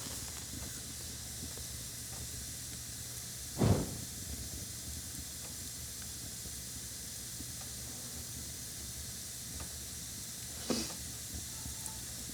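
Matches being lit and blown out: a steady hiss, broken by two short sounds about four seconds in and again near the end.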